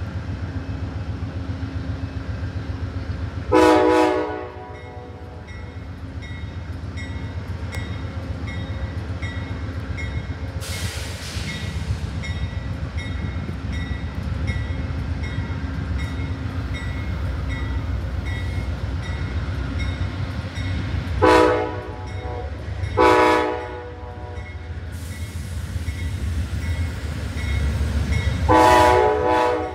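Amtrak diesel locomotive's air horn sounding four blasts as the train departs: one about 4 s in, two short ones close together about two thirds of the way through, and a longer one at the end. Under the horn runs the steady low rumble of the locomotive's engine.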